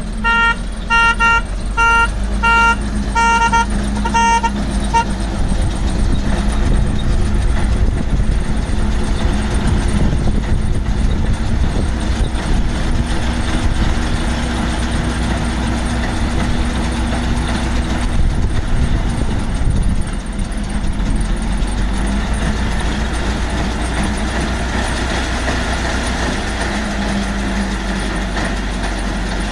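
A tractor-towed pick-up baler running steadily, with a low engine drone and machinery clatter. At the start an electronic beeper sounds about twice a second and stops about five seconds in.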